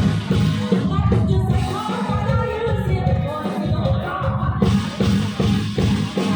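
Live luk thung band playing with a steady drum-and-bass beat while a woman sings over it.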